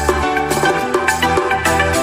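Background music with a steady beat: percussion over sustained bass notes and pitched melody.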